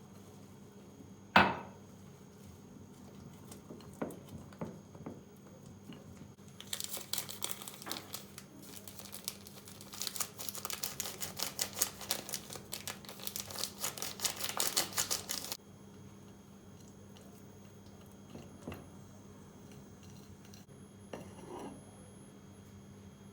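Kitchen utensil sounds: a sharp knock about a second in and a few clinks, then about nine seconds of rapid clinking and scraping of a utensil beating in a bowl, which stops abruptly.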